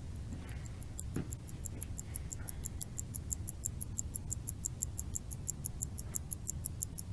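Rapid, even ticking like a clock, about five ticks a second, growing louder over a low steady hum.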